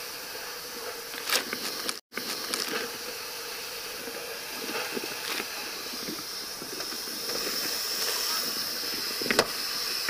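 Steady hiss of water spraying from a fire hose, growing stronger in the second half, with a couple of sharp knocks.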